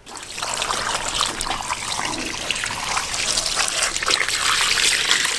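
Water running in a steady trickle with light splashing.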